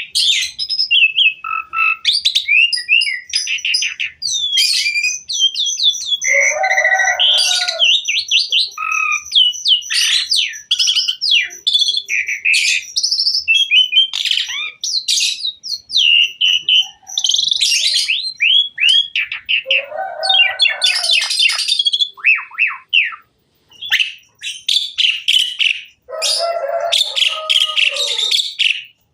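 Asian pied starling (jalak suren) singing a long, varied song of rapid whistles, chirps and trills. The song is broken by harsh, rasping chatter about a quarter of the way in, again about two-thirds of the way in, and near the end.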